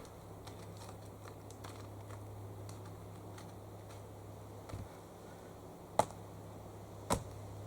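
Two axe blows striking a log, about a second apart near the end, after several seconds of faint small clicks and rustling. The log is a hard one that has not been splitting.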